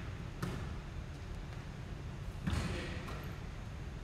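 Basketball thudding on a hardwood gym floor: a thud about half a second in and a louder one about two and a half seconds in, each ringing on briefly in the hall.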